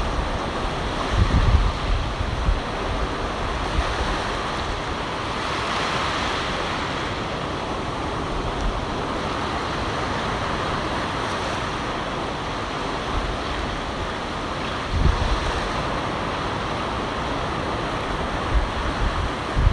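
Ocean surf washing onto the beach in a steady rush, with wind buffeting the microphone in low gusts about a second in, around fifteen seconds in and again near the end.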